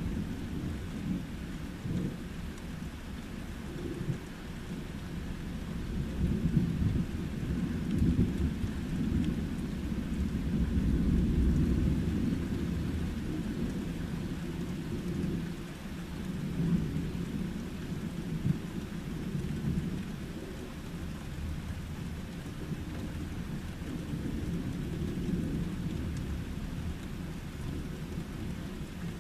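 Long rolling thunder over steady rain. The rumble builds about six seconds in, is loudest around ten to twelve seconds and trails off slowly while the rain keeps falling.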